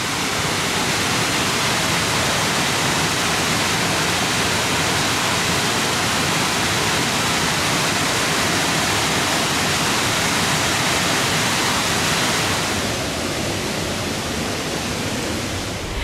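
Waterfall: a loud, steady rush of water pouring over a rock ledge, easing a little near the end.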